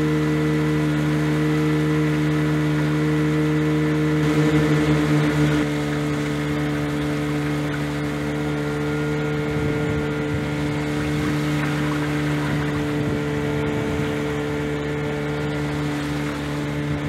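A boat's outboard motor running steadily under way, holding an even pitch. About four to six seconds in it briefly wavers louder, then runs a little quieter.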